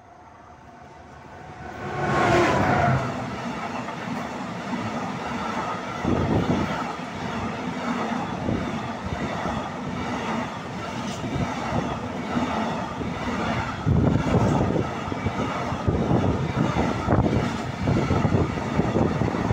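Pesa Gama 111Eo electric locomotive passing close by, loudest about two seconds in, followed by a long train of empty intermodal container flat wagons rattling and clattering over the rails. The wagon noise surges unevenly rather than fading.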